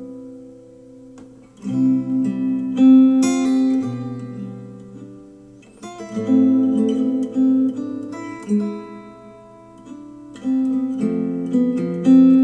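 Acoustic guitar music with strummed chords struck every second or two and left to ring, with no vocals, played back through Polk Audio R100 bookshelf speakers driven by a NAD C 338 integrated amplifier.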